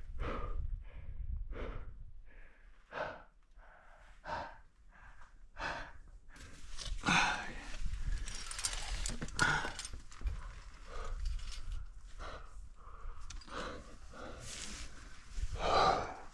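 A climber breathing hard from exertion, with short rasping breaths about every second and a half at first, then less regular.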